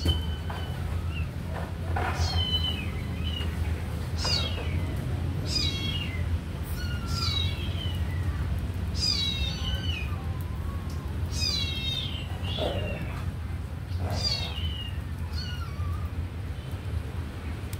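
Kitten meowing again and again: short, high cries that fall in pitch, one every second or two.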